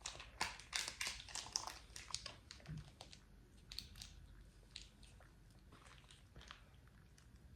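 Close-up biting and chewing of crispy fried chicken: a quick run of crisp crunches in the first couple of seconds, thinning to occasional softer ones.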